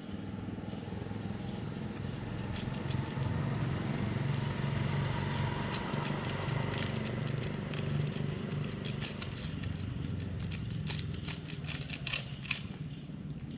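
A vehicle engine runs nearby, louder through the middle. Over it come many sharp clicks and crinkles, densest in the second half, as a dog noses and licks food from a crumpled foil wrapper.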